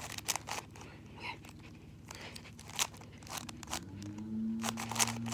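Plastic Rubik's Cube layers being turned by hand: irregular clicking and scraping clacks, in quick runs and single turns. A low steady hum comes in about four seconds in.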